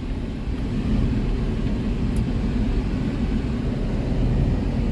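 Steady engine and road noise heard inside the cabin of a Toyota Fortuner SUV driving over an unpaved dirt road.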